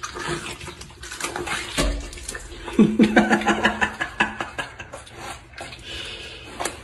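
A deer buck chewing watermelon: wet smacking and crunching, about three chews a second at its most regular. A brief low voice-like sound comes about three seconds in.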